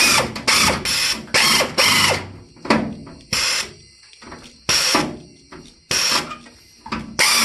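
Air-powered sheet-metal cutter fired in about a dozen short bursts, each starting sharply and dying away, as it bites into the old steel of the quarter panel at the wheel arch. Near the end it runs steadily.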